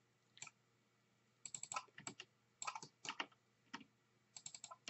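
Faint, irregular clicking of a computer keyboard and mouse, in small quick clusters of a few clicks each.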